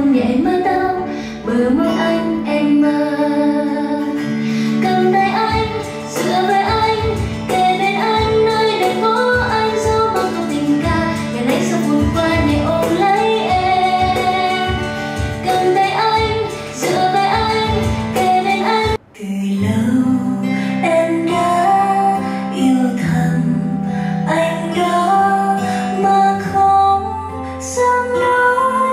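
A pop song with a female singer and guitar, played through a Bose SoundTouch 10 wireless speaker. The music cuts out for a moment about two-thirds of the way in, then carries on.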